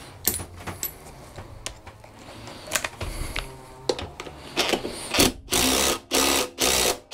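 Cordless impact driver on a long socket extension, run in three short bursts near the end to tighten a lawnmower engine's flywheel nut. Before that come light clicks and knocks of the socket and extension being fitted onto the nut.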